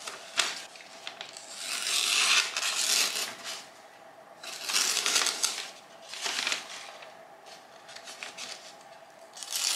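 Benchmade Leuku bushcraft knife slicing thin newspaper in a sharpness test: a few short, rasping strokes of blade through paper. Toward the tip the cut shows the edge to be slightly damaged.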